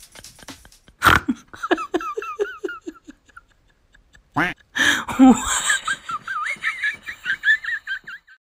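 A person laughing hard in two long bouts of quick repeated pulses, the second bout higher-pitched.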